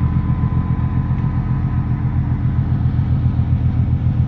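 Car ferry under way, its engines a steady low rumble with a faint steady hum above it, heard from the open deck.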